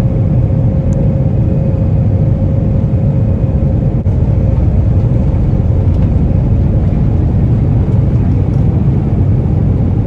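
Airliner cabin noise: the engines and rushing air make a loud, steady low rumble. A faint steady tone fades out about halfway through.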